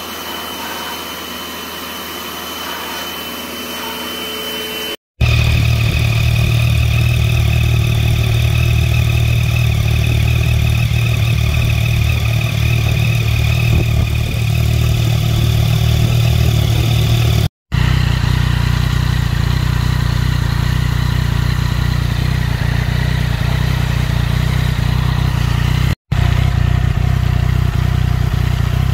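Yamaha MT-09's three-cylinder (CP3) engine idling steadily through an aftermarket three-outlet silencer, in several takes joined by sudden cuts. It is preceded by about five seconds of quieter, steady whirring.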